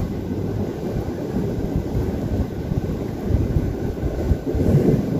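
Wind rumbling on the microphone: a steady, uneven low roar with no distinct events.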